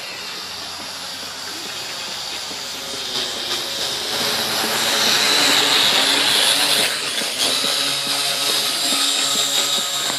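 Syma X8C quadcopter's four propellers whirring steadily in flight, growing louder as it passes close by about halfway through, then easing off.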